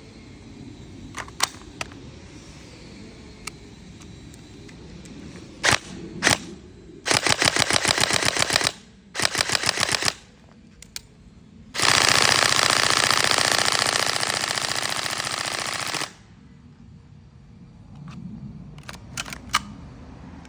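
Airsoft gun firing: two single shots, then two short full-auto bursts of rapid shots and a longer burst of about four seconds that slowly grows quieter. Scattered handling clicks come before and after the firing.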